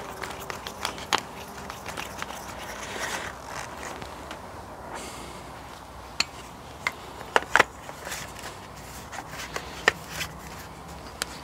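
Close-up handling of a plastic chemical anchor resin cartridge: the mixing nozzle screwed on and the cartridge fitted into a cartridge gun, with scattered plastic clicks and scrapes. The sharpest clicks come in a cluster over half-way through and once more near the end.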